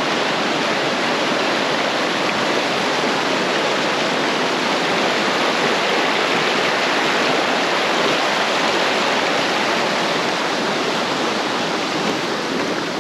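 Creek water rushing, a loud, steady, even hiss of flowing water close by.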